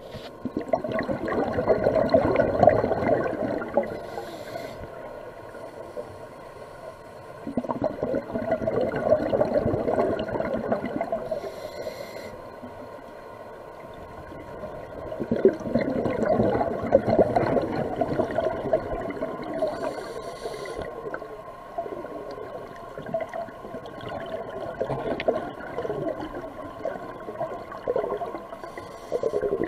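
Scuba regulator breathing underwater: exhaled air bubbling out in four long surges, with a brief hiss of inhalation between them.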